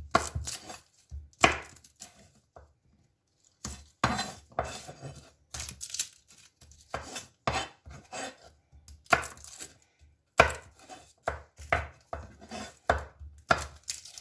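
Irregular knocks and taps of a kitchen knife on a chopping board while garlic is peeled and crushed, with a short pause about two seconds in.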